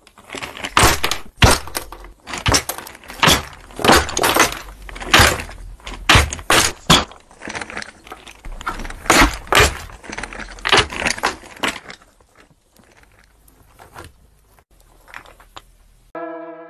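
Wooden Jenga blocks clattering and knocking against each other and onto a wooden table as the tower collapses: many sharp knocks in rapid bursts for about twelve seconds, then only a few faint knocks. Synthesizer music starts just before the end.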